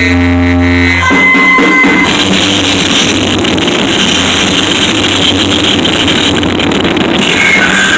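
Loud live noise music: a low buzzing drone with an even stack of overtones, which within about two seconds gives way to a dense wall of harsh noise across all pitches.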